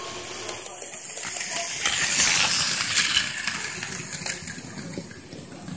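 Plarail Advance 0 Series Shinkansen toy train running on plastic track, its small battery motor whirring and its wheels clattering. It grows louder to a peak about two seconds in as it comes close, then fades as it moves away.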